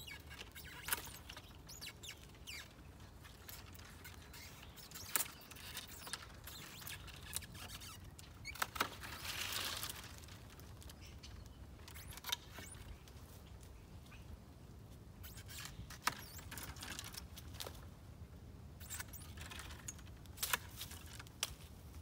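Long-handled loppers cutting through dormant fruit-tree branches, a sharp snap every few seconds, with cut twigs rustling through the tree between cuts.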